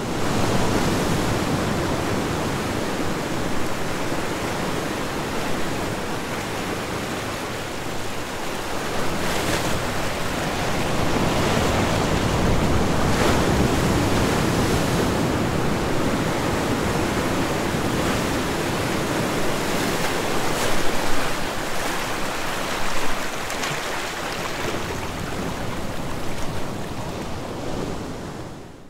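Ocean waves breaking and washing on a shore: a continuous rush of surf that swells and eases, with a few louder crashes along the way, fading out near the end.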